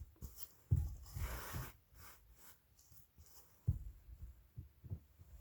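Soft low thumps and scratchy rustling from a kitten playing with its toys, the two loudest thumps about a second in and near four seconds in.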